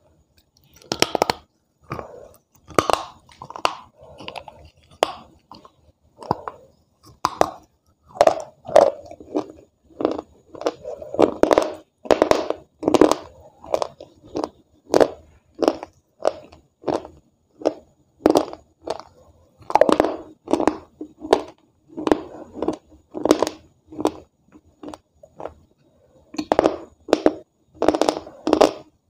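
A person biting and chewing hard, crunchy white clay, close to the microphone. Sharp crunches come about once or twice a second, with a short pause shortly before the end.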